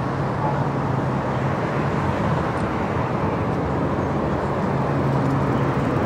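Steady vehicle and road-traffic noise, with a low engine hum that comes and goes.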